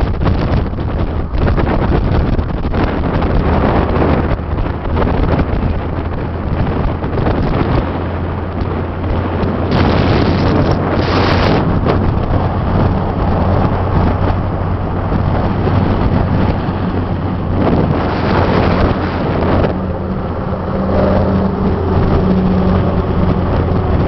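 Wind buffeting the microphone of a camera held out of a moving car's window, over the car's steady road and engine noise. The rushing noise swells twice, about ten and eighteen seconds in.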